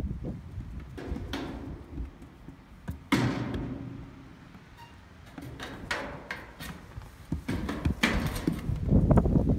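Irregular knocks, thuds and scuffs as newborn goat kids bump against galvanized metal pen panels and step about on a wooden floor, with a sudden knock about three seconds in and a louder cluster of knocks near the end.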